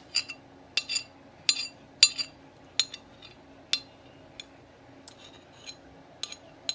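A utensil clinking against a bowl, about a dozen sharp ringing clinks spaced unevenly, as drips of beans are knocked and wiped off the bowl's rim.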